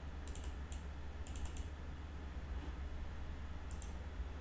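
Computer keyboard keys tapped in a few short runs of quick keystrokes, as when typing a stock symbol, over a steady low hum.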